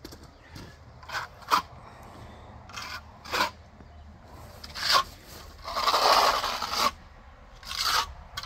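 Square trowel scraping and smoothing fresh cement grout onto a concrete foundation wall, in a series of short strokes with one longer, louder stroke about six seconds in.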